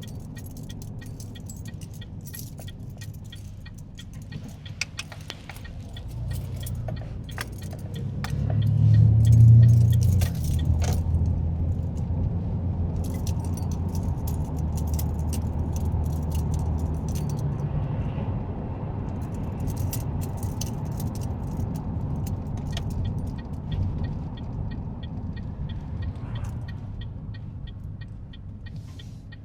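Engine and road noise heard from inside a moving car: a steady low rumble that swells to its loudest about nine or ten seconds in, drops back a little and then holds steady. Light rattling clicks and jingles run throughout.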